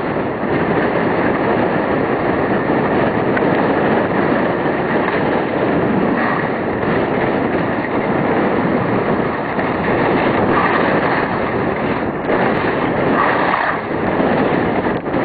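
Steady rushing of wind buffeting the microphone and skis running fast over snow during a downhill run, swelling a few times.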